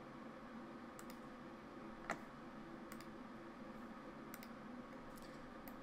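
Computer mouse buttons clicking, about six sparse single clicks with the loudest about two seconds in, over a faint steady hum.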